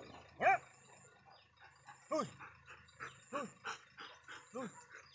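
Belgian Malinois barking four times, about one bark every second and a bit, the first the loudest.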